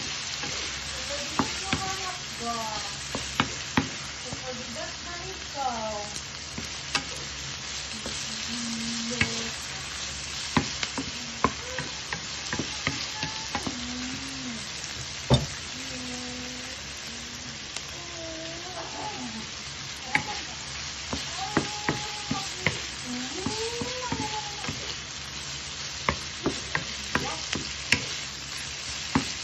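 Chicken and sliced onions sizzling in soy sauce in a nonstick wok, stirred with a wooden spatula that knocks and scrapes against the pan again and again.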